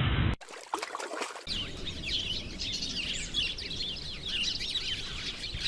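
A flock of small birds chirping all at once: a dense, overlapping chatter of short, quick calls that sets in about a second and a half in.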